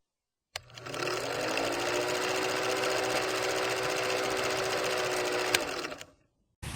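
A small electric motor whirring: it spins up in pitch as it starts, then runs at a steady speed. A sharp click about five seconds in is followed by the whir dying away.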